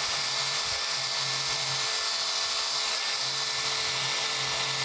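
Angle grinder with a wire wheel brush running steadily against cast iron. Its motor whine sits under a dense, high scratching hiss as it scrubs rust and scale off the casting, cleaning it down to bare metal for brazing.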